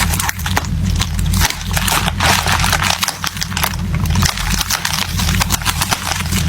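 Packaging crinkling and rustling, handled close to the microphone in a rapid string of small crackles, over a steady low hum.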